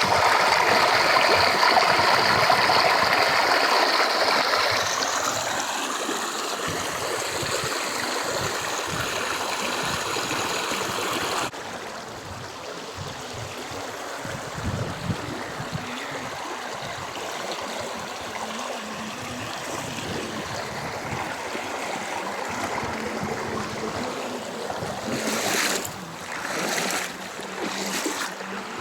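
Stream water running, a steady rushing that is loudest in the first few seconds and drops abruptly at a cut about a third of the way in. A few short gusts of wind hit the microphone near the end.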